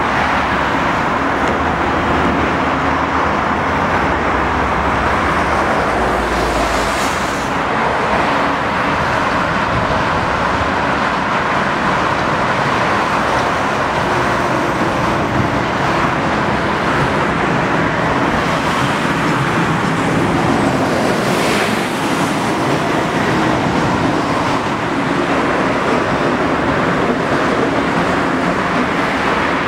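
Steady road traffic, cars passing close by on a multi-lane roadway, with a deeper rumble in the first several seconds and two cars whooshing past, about 7 and 21 seconds in.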